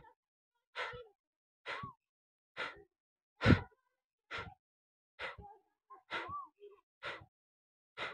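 Kapalbhati breathing: a man's sharp, forceful exhalations through the nose, one short puff about every second, each pushed out by a jerk of the belly. The stroke about three and a half seconds in is the loudest.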